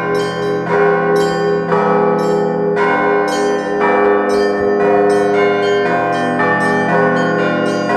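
Russian Orthodox church bells rung together in a continuous zvon: smaller bells struck in quick, repeated patterns over the sustained ringing of larger bells.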